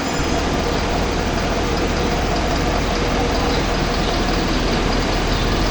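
Air-conditioner evaporator fan running with a steady whir and a faint steady tone; the fan is noisy, the sign of a faulty fan due for replacement.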